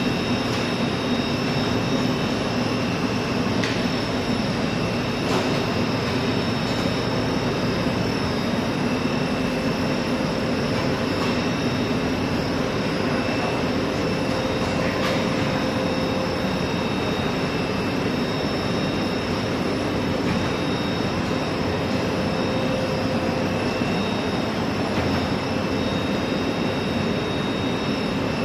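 Butyl rubber sheet production line running: a steady machine hum and whir from its motors and rollers, with a few steady high whining tones and occasional faint clicks.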